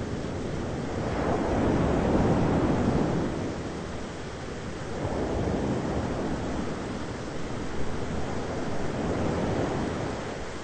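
Thunderstorm ambience: a steady rushing of rain and wind that swells into low rumbles about two seconds in, again around five seconds, and once more near the end.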